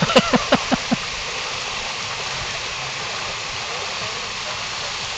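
Steady rush of flowing pool water, with a quick run of about six laughing pulses in the first second.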